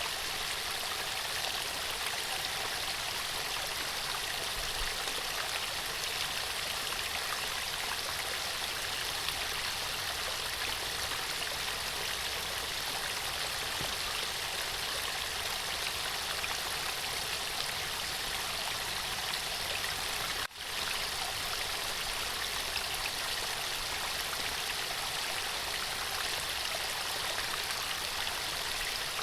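Running water of a stream flowing steadily, an even rushing hiss, broken by a momentary dropout about twenty seconds in.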